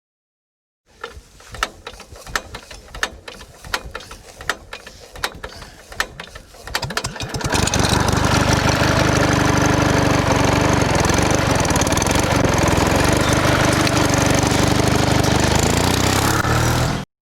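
A run of sharp irregular clicks and knocks, then a small engine running steadily and loudly from about halfway through.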